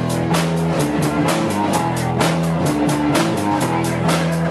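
Live rock band playing amplified electric guitars over a steady drum-kit beat.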